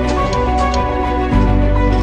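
Background music track with sustained notes and a steady pulse; a deep bass line comes in about halfway through.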